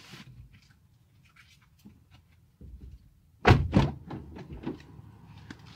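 A flathead screwdriver prying a plastic dome light cover out of a car's headliner: faint clicks, then a loud clatter of knocks about three and a half seconds in, trailing off into a few lighter clicks.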